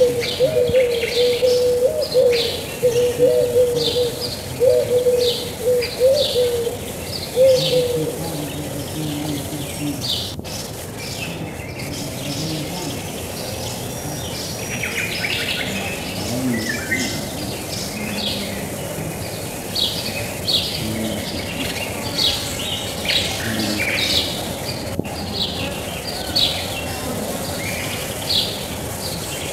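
Birds chirping in short, repeated calls throughout, with a dove cooing in low, wavering notes for the first eight seconds or so.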